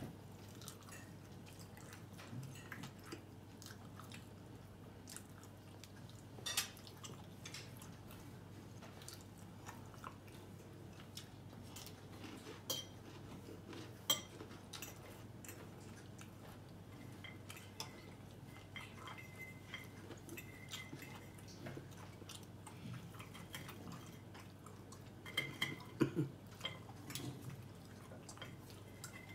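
Metal fork clicking and scraping on a ceramic dinner plate while steak is eaten, with chewing between. The clinks come scattered, a few sharper ones, and a cluster of them near the end.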